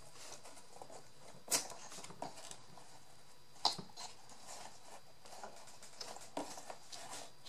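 Small handling noises of cardboard and craft pieces being worked on a tabletop: light rustling and ticks, with two sharp clicks about a second and a half and three and a half seconds in.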